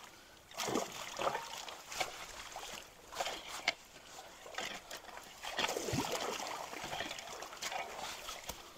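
Creek water sloshing and splashing irregularly around people wading at a culvert mouth as they pull and prod at a log-and-brush jam, with occasional sharp knocks.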